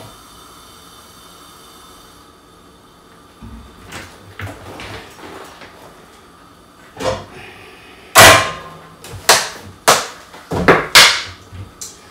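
Kitchen cupboard being opened and rummaged through: bottles and containers knock and clatter as they are moved about, with a run of loud, sharp knocks in the last few seconds. A faint steady hiss from the covered pan on the gas hob fades about two seconds in.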